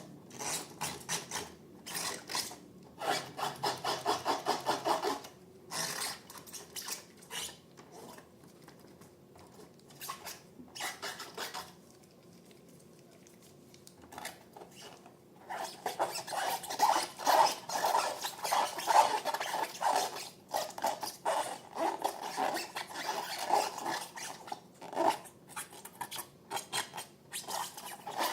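Slime being mixed and worked, making quick repeated rubbing, scraping strokes. The strokes come in bursts, with a quieter pause in the middle, then run denser and louder through the second half.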